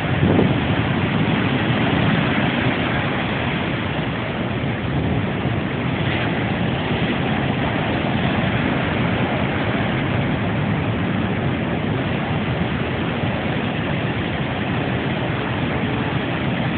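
Hurricane-driven surf and wind: a steady, dense roar of breaking waves mixed with wind buffeting the microphone.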